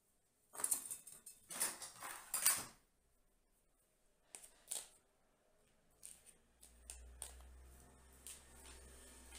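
Bonsai wire and pliers being handled: a burst of metallic rattling and clatter in the first few seconds, two sharp clicks a little later, then light ticks over a faint low hum near the end.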